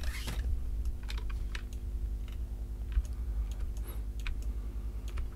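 Scattered clicks and taps from a computer keyboard and mouse, over a low steady hum.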